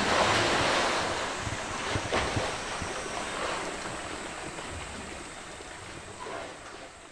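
Polar bear plunging into a pool with a big splash, followed by water churning and sloshing as it swims, fading gradually. A few brief knocks come about two seconds in.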